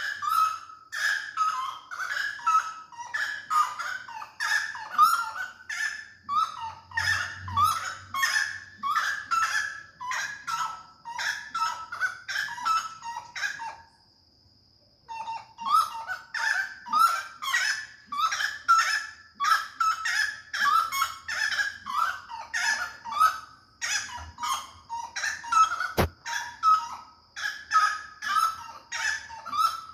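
A flock of birds calling without let-up, several short calls a second, breaking off for about a second near the middle. A faint steady high tone runs beneath, and there is a single sharp click late on.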